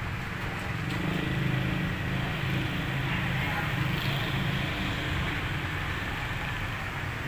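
Steady low engine rumble with a hiss of outdoor noise behind it, swelling slightly about a second in.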